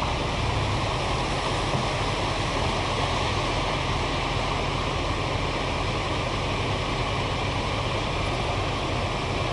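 Steady rush of flash-flood water and runoff, with a low, even rumble of a vehicle engine running underneath.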